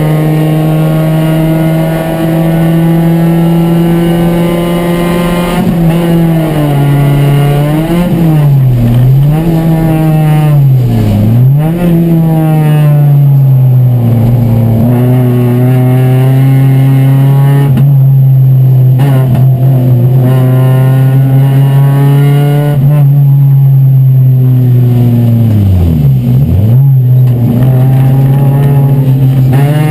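A Chevy race car's four-cylinder engine, heard from inside the stripped cabin, running hard at high revs. Its pitch dips and climbs again several times, in a cluster about a third of the way in and once more near the end, as the driver shifts gears and brakes for corners.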